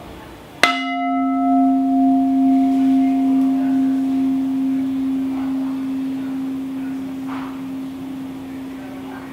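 A resonant sculpture vessel struck once about half a second in, then ringing with one low tone and several higher overtones. The highest overtones die away first, and the low tone rings on, wavering slowly as it fades.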